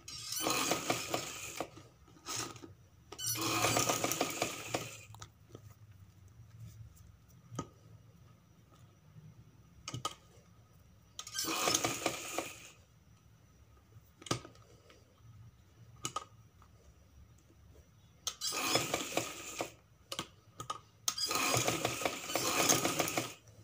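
Domestic sewing machine stitching in five short runs of a second or two each, a fast even clatter of stitches as fabric strips are sewn onto a paper base. Small clicks and handling sounds come between the runs.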